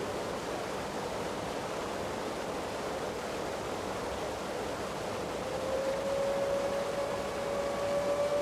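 Steady rush of water pouring from the outlet pipes of a stone weir. About five and a half seconds in, a single held whistle-like tone enters and sustains, rising slightly in pitch.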